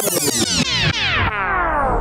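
Electronic synthesizer sound sweeping downward in pitch through the whole two seconds, many tones falling together.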